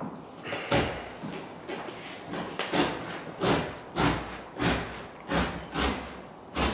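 A sharp utility knife cutting through Berber carpet, drawn along the edge of a wood floor in a dozen or so short strokes, roughly two a second.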